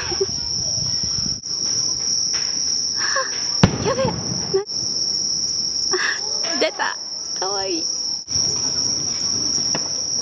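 Steady high-pitched chorus of crickets, broken by short gaps every three to four seconds. A single sharp bang about three and a half seconds in is the loudest sound.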